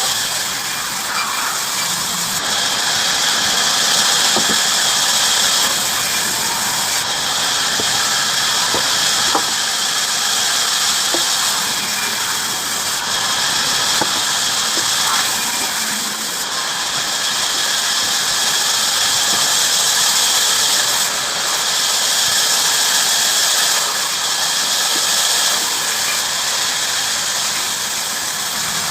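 Bandsaw cutting through timber: a steady high hiss and squeal of the blade in the wood over the running machine, swelling and easing every few seconds.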